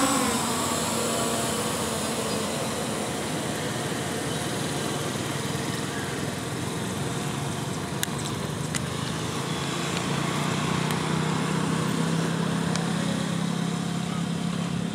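Camera drone's propellers buzzing steadily as the drone climbs. A low hum grows stronger about ten seconds in.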